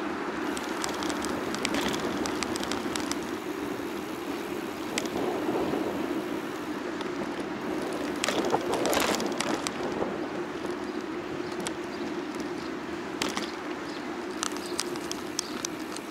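Bicycle riding noise: a steady hum of tyres on the road and wind, with scattered clicks and rattles from the bike. It swells louder briefly about nine seconds in.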